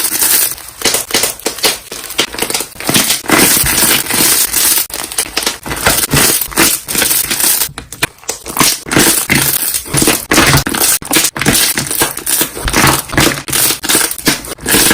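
Slime being squeezed and pressed by hand, its trapped air bubbles popping in loud, dense crackles and snaps.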